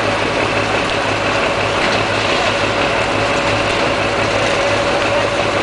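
Harvesting machinery running steadily: a loud, even mechanical clatter with a steady whine and a low engine hum underneath.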